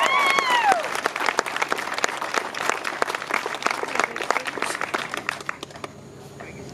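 A small crowd applauding. A held whooping cheer from one voice carries over the first second, and the clapping thins out and dies away about five and a half seconds in.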